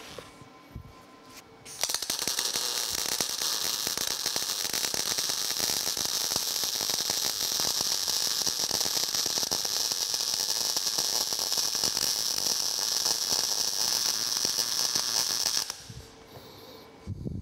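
Electric arc welding on steel: a steady crackling sizzle that starts about two seconds in and stops a couple of seconds before the end, as one continuous bead is laid joining a steel foot to a leg of the stand.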